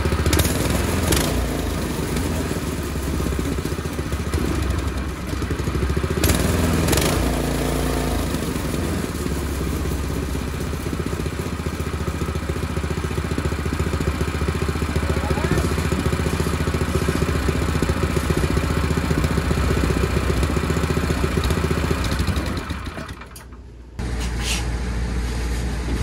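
Harbor Freight Predator 212cc single-cylinder four-stroke engine on a go-kart, running steadily just after a choked start. Near the end the sound dies down briefly, then returns abruptly.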